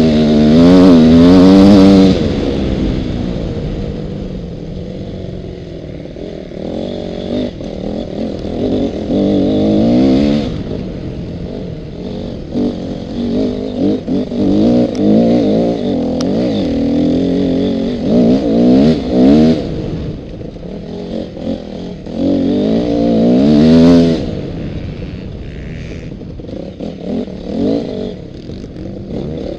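Honda motocross bike's engine revving hard and backing off again and again as it is raced over a rough ploughed dirt track. It is heard from the rider's helmet, loudest in the first couple of seconds and again about three-quarters of the way through.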